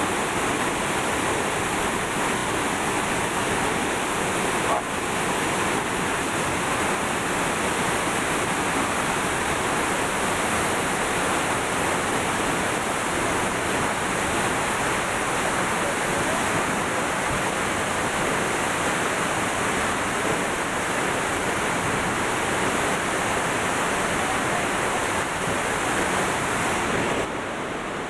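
La Fortuna waterfall plunging into its pool: a steady, loud rush of falling water, dipping slightly just before the end.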